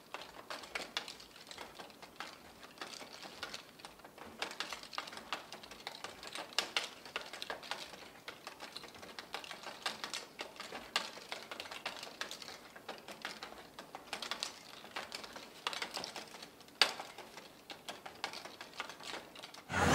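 Faint, quick, irregular clicking and ticking as a bicycle wheel is turned slowly by hand, with one louder click near the end.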